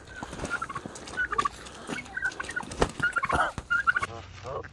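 Domestic tom turkey gobbling, a string of short calls with one longer call a little past three seconds, cut off abruptly shortly before the end.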